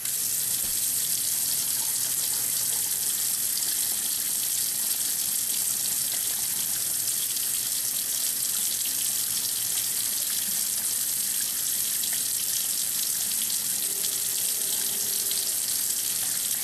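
Water running steadily from a faucet.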